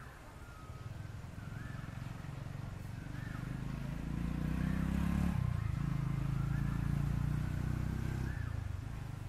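A motor vehicle's engine passing by, growing louder to a peak in the middle and fading away near the end. Over it a bird repeats a short rising-and-falling call about every second and a half.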